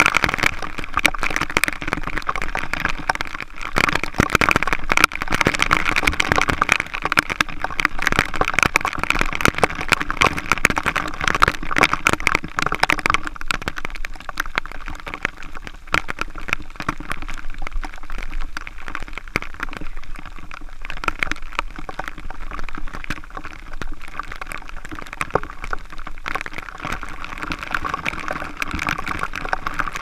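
Waterfall spray pattering and spattering right onto the camera, over the steady rush of falling water. The spatter is heaviest in the first half, eases off, and builds again near the end.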